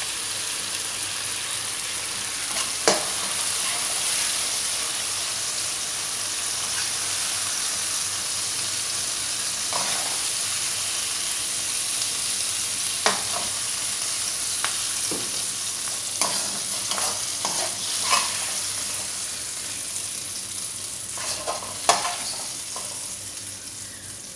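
Scrambled egg and tomato sizzling in oil in a wok over a gas flame, with a steady hiss. A metal spoon scrapes and knocks against the wok now and then as the food is scooped out, most often in the later part.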